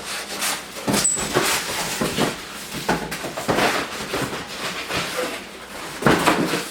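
A cardboard box and its packing being handled as a power tool is lifted out: a run of irregular rustles, scrapes and bumps.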